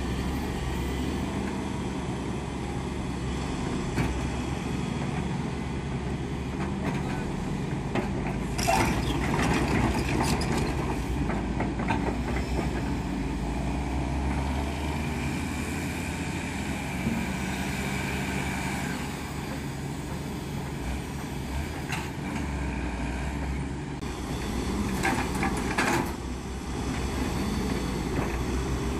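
Volvo crawler excavator's diesel engine running steadily under hydraulic load while its rotating stone grab handles boulders, with rocks knocking and clattering about nine seconds in and again around twenty-five seconds in.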